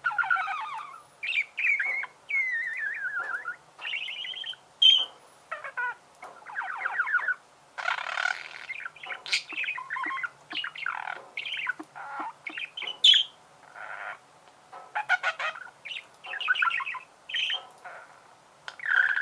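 Budgerigars warbling and chattering: a busy run of short chirps, squawks and warbled phrases, broken by brief pauses.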